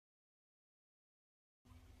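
Silence, with a faint background hiss coming in just before the end.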